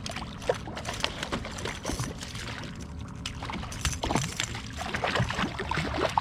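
Water splashing and dripping around a kayak, with scattered light clicks and knocks.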